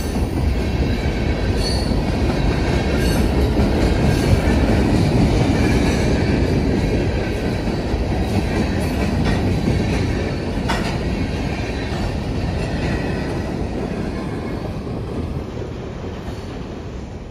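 Freight train cars rolling past on jointed track: a steady low rumble of steel wheels on rail with some clatter and thin high wheel squeal, gradually fading over the last several seconds as the cars move away.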